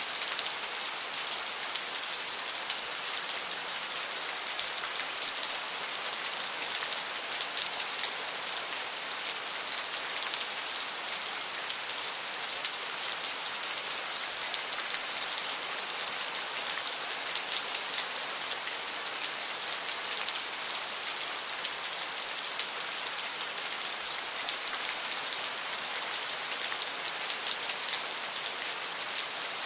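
Steady rain: an even hiss made of countless small drop hits.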